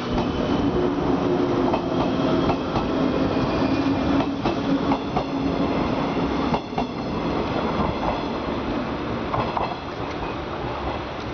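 A JR 115-series electric multiple unit rolls slowly past as it pulls into the station. Its running makes a steady rumble with a low hum, and the wheels click irregularly over the rail joints. The hum stops about seven seconds in, and the rumble eases as the last car goes by.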